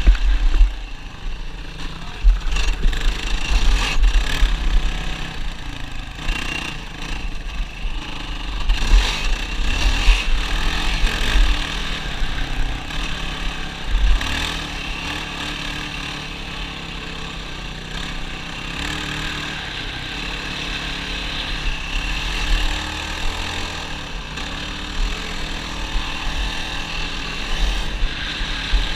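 ATV engine running under way, its pitch stepping up and down as the throttle and gears change, with heavy low buffeting on the microphone.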